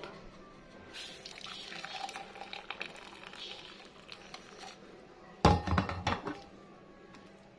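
Hot milky karak chai poured from a steel pan through a steel mesh strainer into a mug, a soft, steady stream of liquid. About five and a half seconds in comes one loud metallic clank, then a few lighter clinks of metal utensils.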